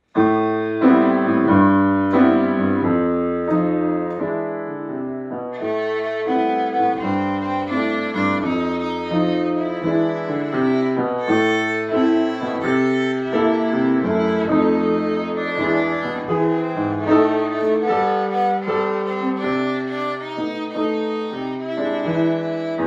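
Solo violin played with the bow over piano accompaniment, a tune of many short notes.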